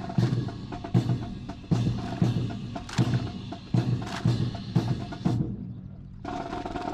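Drill rifles handled in unison by a drill team: sharp, rhythmic claps and knocks of hands and rifles striking, a strong hit about every half to three-quarters of a second with lighter clicks between. The sound drops away briefly near the end and then starts again.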